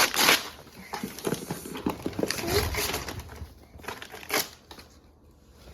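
Gift packaging crinkling and rustling as a boxed toy is handled and opened, loudest in the first second and a half and then in scattered bursts.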